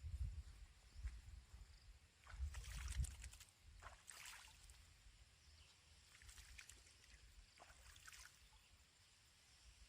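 Faint low rumble on the microphone through the first three seconds or so, with scattered small clicks and rustles.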